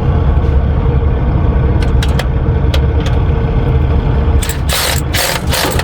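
Steady low diesel engine rumble, with a few sharp clicks about two seconds in and louder rasping noise near the end as hand tools work the belt tensioner.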